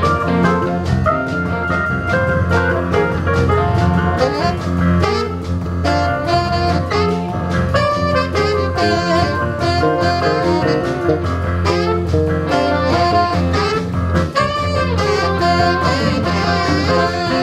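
Live soul-jazz band playing instrumentally: a saxophone plays lead over electric bass, drums, keyboards and guitar.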